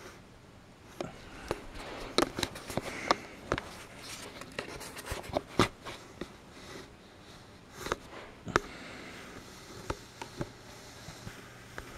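Irregular light clicks and sharp knocks of plastic toy trains on plastic track, a few louder than the rest, with no steady rhythm. A faint steady low hum comes in near the end.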